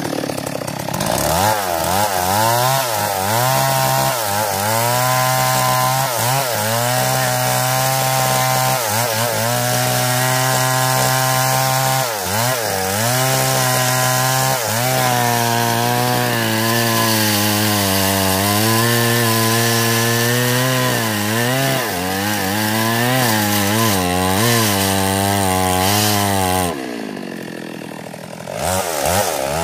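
Stihl MS 382 two-stroke chainsaw running at full throttle while cutting into a mahogany trunk, its engine pitch sagging and recovering as the chain bites into the wood. Near the end it eases off for a couple of seconds, then revs up again.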